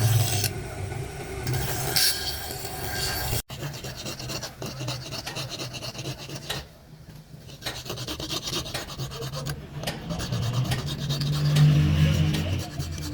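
Fast, rasping scrape strokes of hand abrasive work on the knife, such as filing, sanding or sharpening, over a low steady hum. It breaks off abruptly about three and a half seconds in and resumes.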